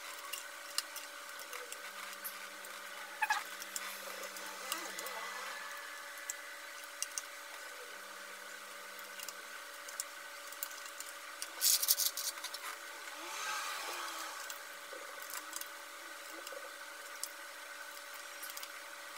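Light clicks of keys on a mechanical keyboard with round typewriter-style keycaps being pressed: scattered single clicks over a steady low hiss, with a quick run of several louder clicks about twelve seconds in.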